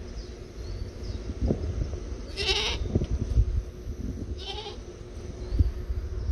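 A goat bleating twice, two short, harsh calls about two seconds apart, with low thumps in between.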